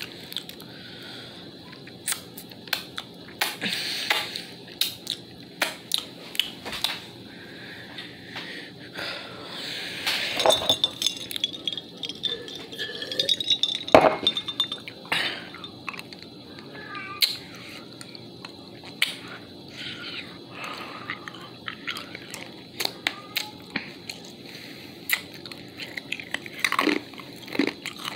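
Mouth sounds close to the microphone: irregular sharp clicks and smacks, denser about ten to fourteen seconds in.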